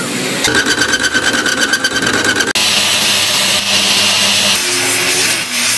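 Power tools working steel. First comes a fast, even chatter with a steady whine for about two seconds. After a sudden break, an angle grinder grinds a steel shaft turning in a lathe, a steady hissing grind over a low hum.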